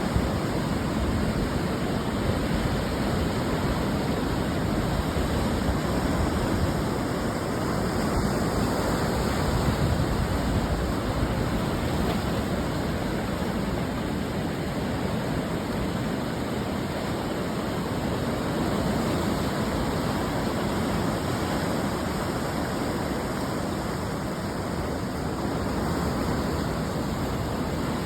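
Ocean surf breaking on the shore: a steady rush of noise that swells gently and eases off, with no distinct single crash.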